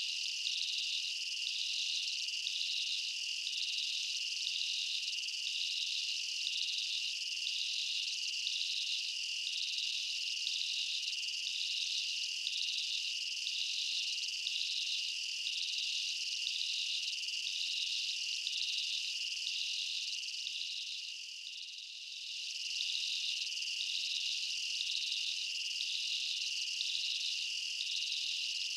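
Steady, high-pitched insect chorus: a continuous drone with a regular pulsing call layered over it. It fades briefly about two-thirds of the way through and comes back.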